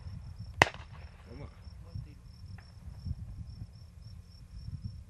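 A single shotgun shot, a sharp short crack about half a second in. Behind it, insects chirp in a steady, evenly pulsing high trill.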